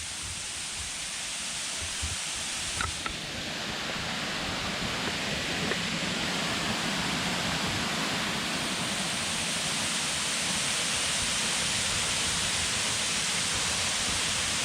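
Steady rushing of water falling over the lake's dam, growing gradually louder.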